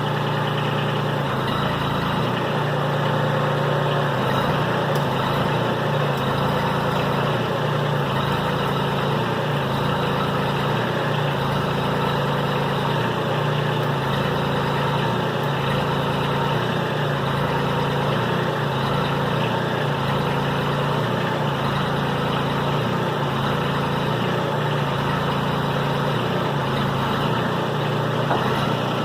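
An engine running steadily at idle, a continuous low hum with no change in speed.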